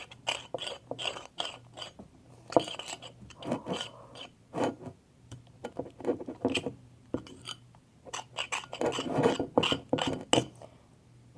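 Spoon stirring thick, sticky slime, with irregular clinks and scrapes against the dish.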